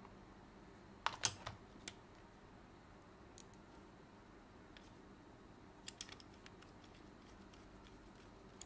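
Small, sharp plastic clicks and taps as the internal parts of a PS5 DualSense controller are fitted back together and screwed in: a quick cluster about a second in, a single click shortly after, and another small cluster around six seconds, over a faint steady hum.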